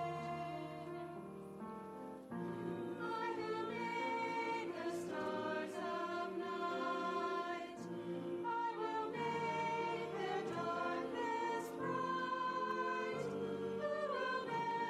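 Church choir of men and women singing together in long held notes. The sound thins out about a second in and comes back fuller about two seconds in.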